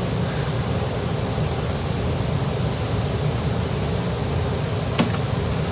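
Heater running with a steady, even low rushing noise. A single sharp click about five seconds in.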